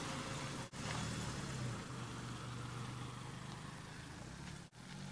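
Car driving past, its engine running with a steady low hum under road noise. The sound cuts out briefly twice, about a second in and near the end.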